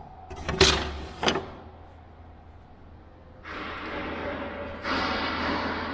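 Two sharp knocks as a steel ruler is handled on a wooden work surface, then a steady scratching from about three and a half seconds in as the ruler and a pen scrape over the wood while a layout line is drawn.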